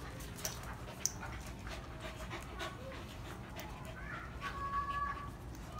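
Two dogs play-fighting, with panting and scuffling and short clicks of paws and claws on concrete. A brief, steady high tone comes about three-quarters of the way through.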